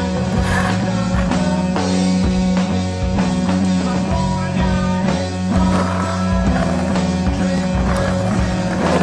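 Rock music soundtrack with a held bass drone and a steady beat. From a little past halfway, the rolling of skateboard wheels on concrete joins in under the music.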